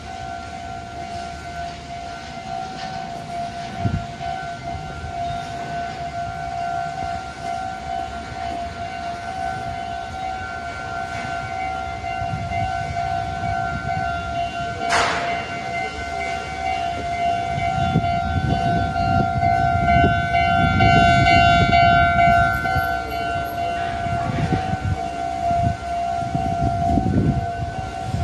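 Japanese railway level-crossing warning bell ringing steadily in two close tones. A low rumble builds through the second half and is loudest about two-thirds of the way through, with a brief sharp rising sound about halfway.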